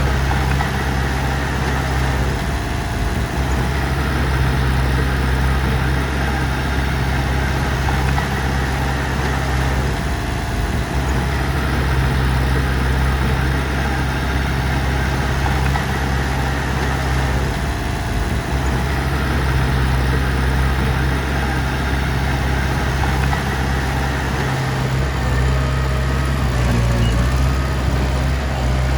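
Heavy machinery diesel engine running steadily at a constant speed, a loud unbroken low hum.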